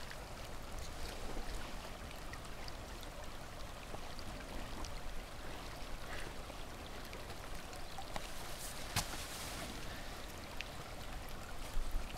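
Shallow wadi water trickling steadily over gravel, with a few faint clicks and a brief louder hiss about nine seconds in.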